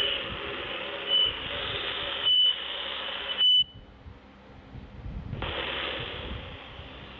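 Three short, high electronic beeps, a little over a second apart, over a loud steady hiss. The hiss cuts out about halfway through and comes back near the end, quieter.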